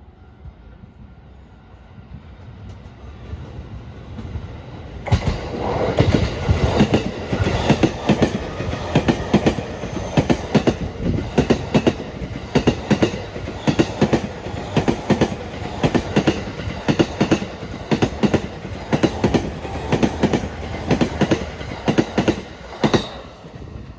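JR East E231 series 1000 electric commuter train passing while accelerating, its wheels clacking over rail joints in rapid clustered beats as each bogie crosses. The sound builds over the first few seconds as it approaches, then the joint clacks run loud and regular until the last car passes near the end.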